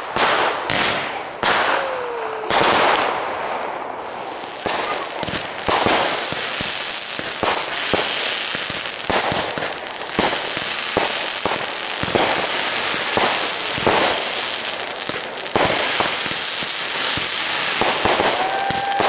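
Consumer ground fireworks going off: a rapid, irregular series of pops and bangs. From about six seconds in they run over a steady hissing crackle as the firework sprays sparks. A short falling whistle comes about two seconds in.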